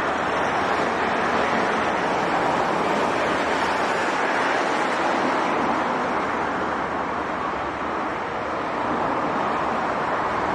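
Steady noise of multi-lane highway traffic: tyres and engines of cars and trucks going by, with no single vehicle standing out.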